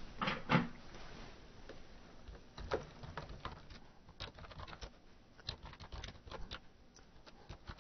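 Typing on a computer keyboard: faint, irregular keystroke clicks.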